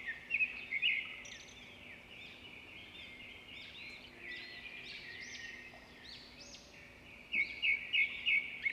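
Birds chirping and calling, many short arching whistled notes overlapping, with a quick run of sharp, louder notes near the end.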